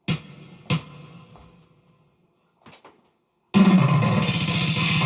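Two kick drum hits about half a second apart, then a faint click, then about three and a half seconds in a band with drum kit and guitar starts playing loudly.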